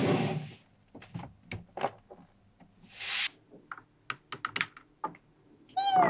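Small magnetic steel balls clicking and snapping as a slide built of them is pressed into place: a rubbing scrape at the start, then scattered sharp clicks. A falling whistle tone starts just before the end.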